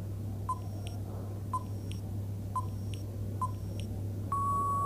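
Countdown timer sound effect: four short beeps about a second apart, then one long steady beep near the end, over a low steady hum.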